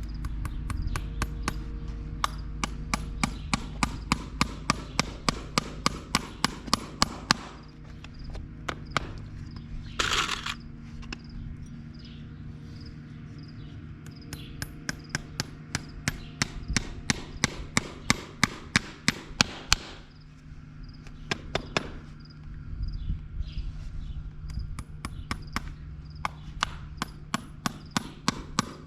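Farrier's hammer striking steel in steady runs of about three ringing blows a second, with pauses between the runs, over a steady low hum.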